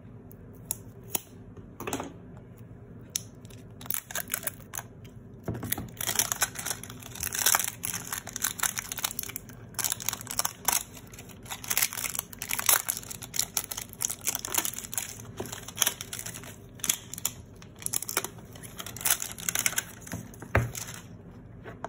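Clear plastic shrink-wrap on a cardboard box being slit with a knife and peeled off. A few scattered clicks come first, then a long run of dense crinkling and tearing that stops shortly before the end.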